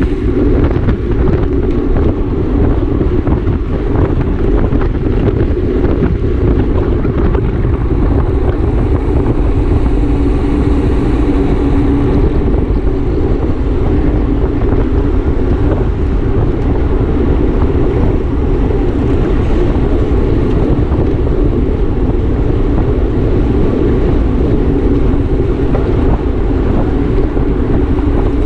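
Wind rushing loudly and steadily over the microphone of a camera on a racing bicycle at speed.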